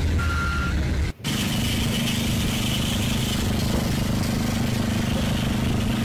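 Construction-site machinery running steadily, with one beep of a vehicle's reversing alarm near the start. The sound drops out for an instant about a second in, then a steady engine hum carries on.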